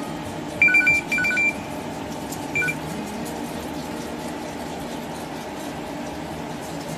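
A few short high-pitched beeps, two steady pitches sounding together, in three quick bursts within the first three seconds, over a steady low background hum.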